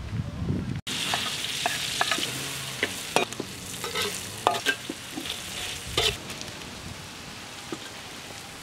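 Vegetables frying in oil in a metal wok, sizzling steadily, while a metal spoon stirs and scrapes, clicking sharply against the pan many times. The sizzle fades a little toward the end.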